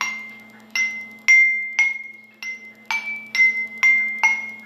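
Glass cups filled with different amounts of water struck one after another, about nine clear ringing tings that each die away. They sound at two or three close, high pitches.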